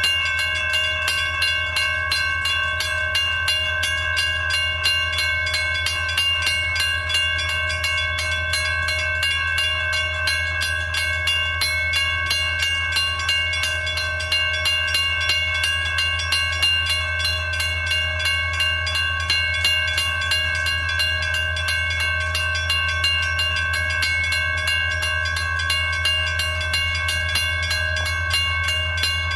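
Railroad grade crossing warning bell ringing in a fast, even run of dings, over a steady low rumble.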